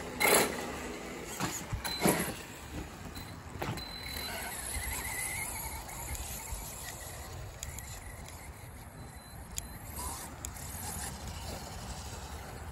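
Electric RC trophy truck on a 6S battery pulling away, with two loud, sharp bursts from its motor and tyres in the first two seconds. After that comes a fainter, steady whine and tyre noise as it runs off across grass.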